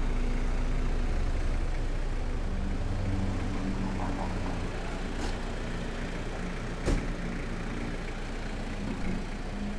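A vehicle engine idling as a steady low hum, with one sharp knock about seven seconds in.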